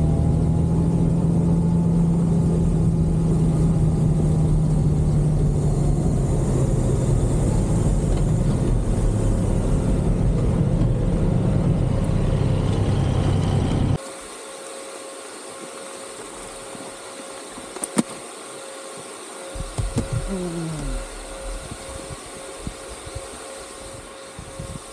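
Honda Gold Wing's flat-six engine running steadily under way. About halfway through the sound cuts off abruptly to a much quieter background with a thin steady hum, a single sharp click and a brief falling whine.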